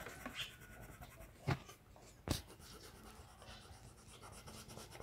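Colored pencil scratching faintly on sketchbook paper as a drawing is shaded in, with two sharp taps about a second and a half and two seconds in.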